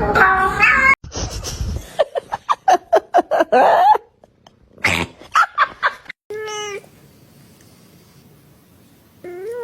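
Domestic cats making a series of odd calls: a quick run of short, choppy cries in the middle, and a couple of drawn-out meows near the end.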